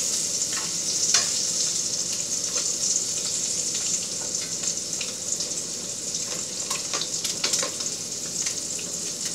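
Rockfish fillet searing in butter in a stainless steel pan on high heat: a steady high-pitched sizzle with scattered pops and crackles.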